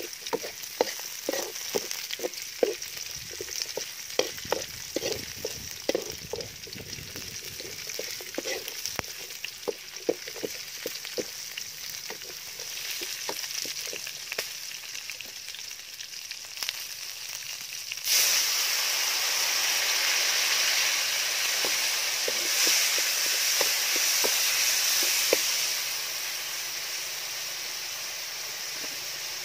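Chopped garlic, chili, ginger and lemongrass sizzling in oil in a steel wok, with a metal spatula scraping and tapping the pan in quick strokes. About eighteen seconds in, the sizzling suddenly gets louder for several seconds, then eases back.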